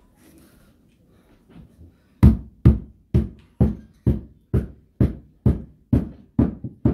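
A hammer striking repeatedly while carpet is fastened down on a carpeted stair step: steady, dull blows about two a second, starting about two seconds in, after a stretch of faint handling knocks.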